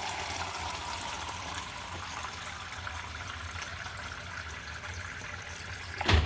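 Water pouring in a steady stream from a Fisher & Paykel RF170ADUSX4N refrigerator's door water dispenser into a container, stopping near the end with a short knock.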